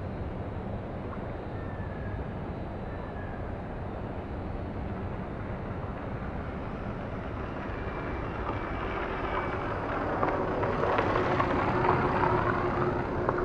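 Steady outdoor background noise, with an engine passing that grows louder from about eight seconds in, is loudest near the end, then eases.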